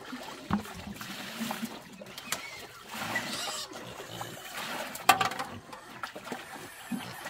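Wet splashing and slopping at a pig trough, with scattered clicks and one sharp knock about five seconds in.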